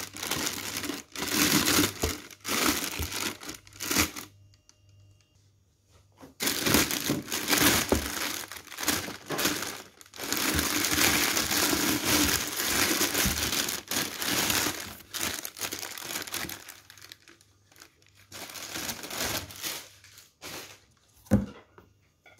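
Thin plastic bag crinkling and rustling in bursts as a pressure cooker is pulled out of it, with a lull about four seconds in. A single sharp knock near the end.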